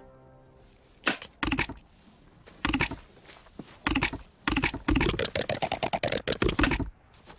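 Short bursts of quick clicking and rattling with quiet gaps between. The bursts come closer together from about halfway through and stop shortly before the end.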